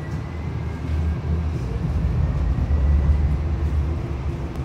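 Steady low rumble inside a moving light-rail train car, with a faint high whine slowly rising in pitch.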